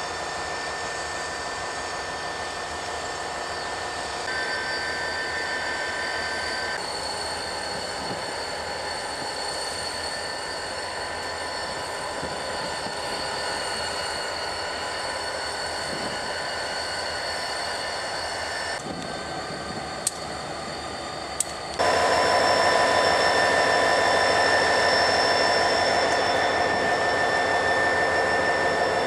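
Diesel-hauled freight train rolling slowly past: a steady rumble with several sustained high squealing tones from the wheels. Two sharp clicks about two-thirds of the way in, then the sound turns louder.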